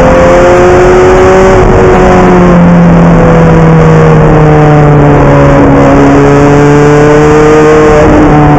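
Ferrari F430 GT's V8 engine heard at full race pace from inside the cockpit, very loud. Its revs climb, fall sharply at a gear change about a second and a half in, sag, then climb again and drop near the end.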